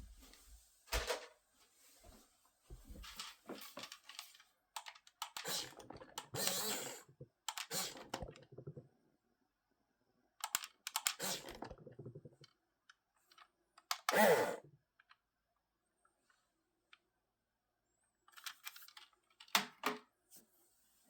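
Toy RC tank's small electric drive motors and plastic tracks running in short bursts of a second or two, a clicky rattle with quiet gaps between. The longest and loudest burst comes a little past halfway.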